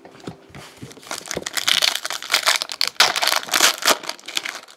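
Foil wrapper of a football trading-card pack crinkling and crackling as it is handled and pulled open, starting about a second in and cutting off near the end.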